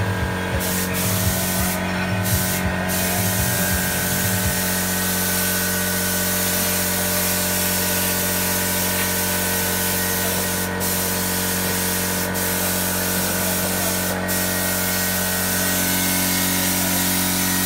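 Paint spray gun hissing steadily as paint is sprayed onto a wall, over a steady mechanical hum. The hiss drops out briefly a few times.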